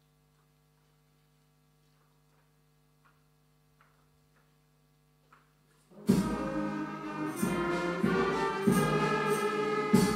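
Near silence with a faint steady hum. About six seconds in, a children's band of trumpets, saxophones and drums starts playing together loudly on the conductor's downbeat, with a steady drum beat under the horns.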